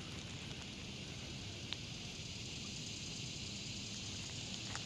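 Steady outdoor ambience: an even high hiss over a low rumble, with a faint short click about two seconds in and another near the end.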